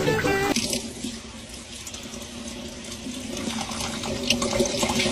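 A plucked guitar tune cuts off about half a second in, then water runs steadily from a tap or shower spray, with scattered small splashes.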